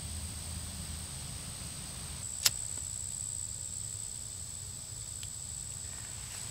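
Steady high-pitched insect drone from the surrounding woods, with one sharp click about two and a half seconds in.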